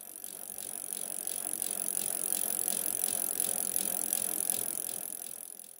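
Bicycle wheel spinning on its freewheel, ticking regularly over a steady hiss. It fades in at the start and out at the end.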